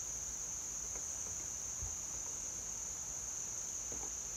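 Steady, high-pitched chorus of insects in the trees, running unchanged, with a couple of faint knocks.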